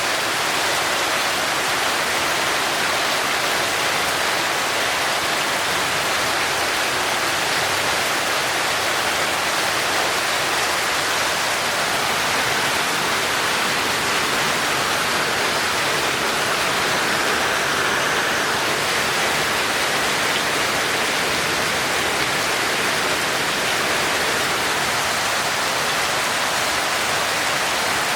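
Heavy, torrential rain falling steadily: a constant, even hiss of water with no breaks or individual impacts standing out.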